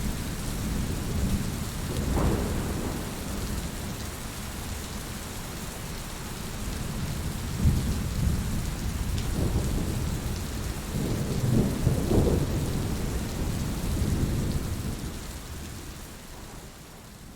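Steady rain with low rolling thunder that swells up several times, loudest about eleven to twelve seconds in, then fades down near the end.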